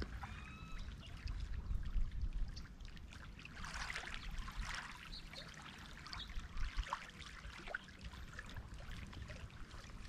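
Small waves lapping and trickling on a pebbly lakeshore, swelling louder for a second or so near the middle.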